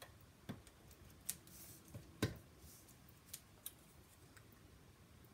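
Faint scattered clicks and ticks of paper pieces and a small plastic adhesive dispenser being handled on a craftwork table, about half a dozen in all, the sharpest a little over two seconds in.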